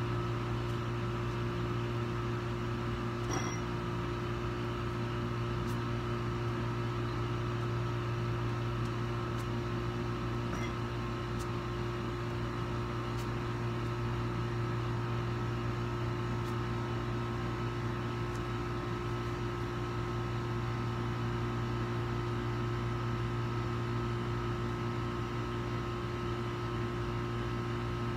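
Steady machine hum, a low drone with a few fainter higher tones, like a fan or air-conditioning unit running. A faint tick about three seconds in.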